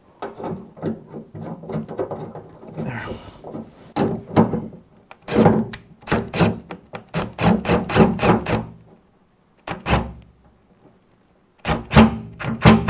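Compact cordless driver run in short bursts, driving the new tailgate handle's screws into a pickup's steel tailgate, with a string of sharp knocks. It stops for about two seconds near the end, then fires again in a few quick bursts.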